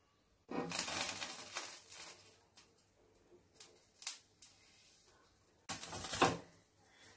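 Whole eggplant being turned by hand on a wire grill rack over a gas burner: rustling and scraping against the metal wire, with a few light clicks. It comes in two spells, one starting about half a second in and one near the end.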